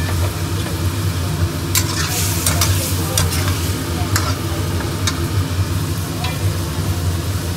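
Shrimp and sliced vegetables sizzling in a wok while a metal spatula stirs them, scraping and clicking against the pan from about two seconds in. A steady low hum sounds throughout.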